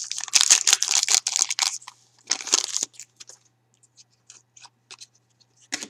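Foil wrapper of a hockey card pack crinkling as the cut pack is pulled open and the cards slid out, for about two seconds, then a second short crinkle. After that, only faint rustles and small clicks of the cards being handled, with one sharper click near the end.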